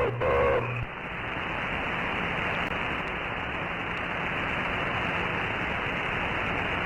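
Radio receiver static: a steady hiss of band noise with no signal on the channel, limited to the radio's narrow audio bandwidth. A brief warbling tone sounds in the first second before the hiss alone takes over.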